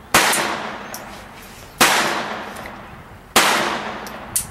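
A 9 mm semi-automatic pistol fired three times at a steady pace, about a second and a half apart, each shot trailing off in an echo. A smaller sharp click comes just before the last shot.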